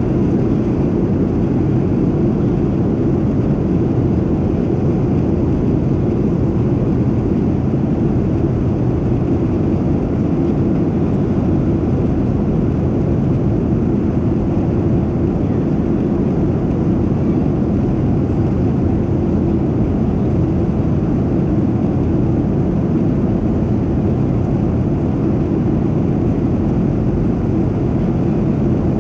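Steady, low cabin noise of a Boeing 737-700 in flight: its CFM56-7B turbofan engines and the rushing air, heard from a window seat over the wing.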